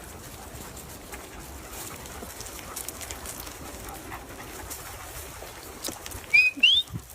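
A steady noisy background, then two or three short high rising squeaks from an animal about six and a half seconds in.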